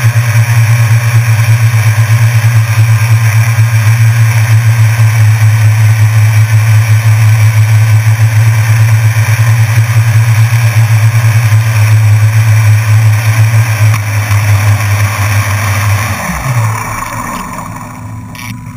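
Small drone's electric motors and propellers humming steadily at a hover, heard loud and close from the onboard camera. About 16 seconds in, the pitch slides down and the sound winds away as the drone sets down on the floor and its motors spin down.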